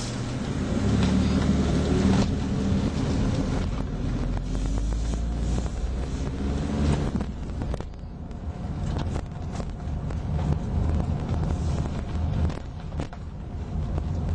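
Car engine running and tyre noise heard from inside a slowly driven car. The engine note is strongest early on and eases off about halfway through, with a few light knocks.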